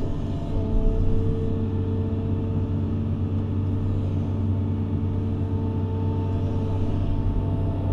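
Doosan DX180 excavator running steadily, heard from inside the cab: a low engine drone with a steady whine over it while the boom and arm move.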